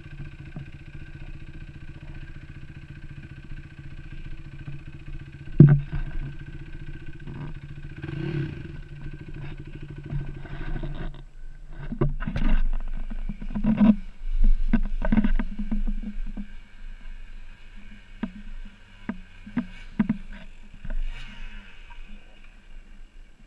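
Dirt bike engine idling steadily, with one sharp knock about a quarter of the way in. The engine sound stops about halfway, and a run of short knocks, clatters and brief low engine bursts follows.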